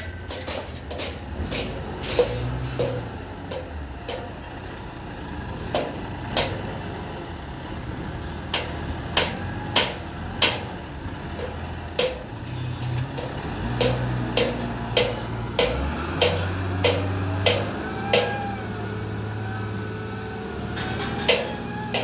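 Wheel loader's diesel engine running under load as it moves sand, the hum rising and falling with throttle changes. Irregular sharp knocks, one or two a second, sound over the engine and are the loudest thing heard.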